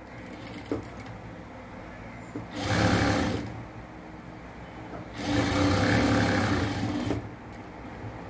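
Industrial flatbed sewing machine stitching along a cloth edge in two short runs, about a second and then about two seconds long, with a low steady hum between them.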